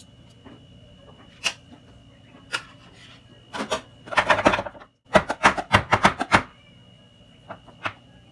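Spoon clicking and scraping in a square aluminium cake pan as thick chocolate batter is spread, then a quick run of sharp knocks, about six a second, as the pan is tapped down to level the batter.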